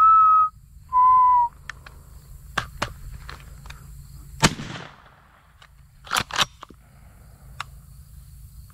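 Two loud, steady, whistle-like beeps of about half a second each in the first second and a half, then a single shotgun shot at a dove about four and a half seconds in, a miss at long range. Two quick sharp clacks follow about two seconds after the shot.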